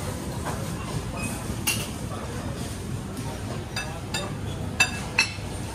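Indistinct background voices over a steady hum, with short sharp clinks now and then, the two loudest close together near the end.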